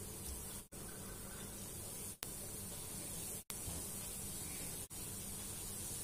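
Breaded chicken donuts frying in a pan of hot oil: a steady sizzle, broken by brief silent gaps about every second and a half.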